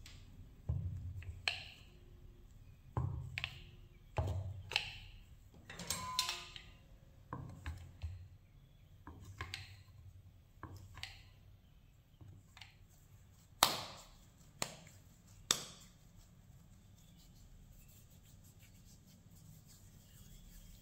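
A metal bench scraper and then a kitchen knife cutting through dough onto a wooden board: a series of knocks and taps, some with a dull thump, the three sharpest close together about two-thirds of the way in. Near the end only faint hand-handling of the dough.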